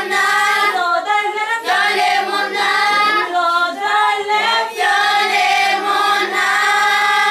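Children's choir singing, ending on a long held note over the last few seconds.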